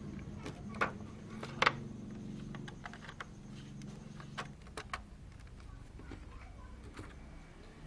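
A few sharp clicks and knocks, the loudest about one and a half seconds in, over a low steady hum that fades out about halfway through.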